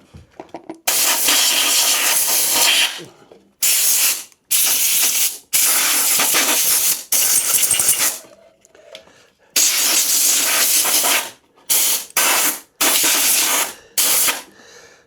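ACF-50 anti-corrosion aerosol being sprayed onto electrical connectors in a series of hissing bursts, about nine in all. Some bursts are long, up to about two seconds, and others short, with brief pauses between them.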